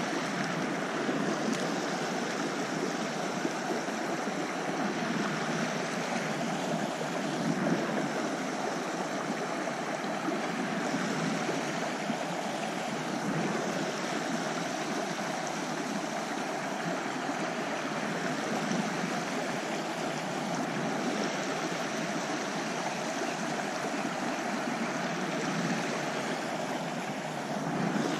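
Shallow, rocky trout creek running over stones: a steady rush of flowing water.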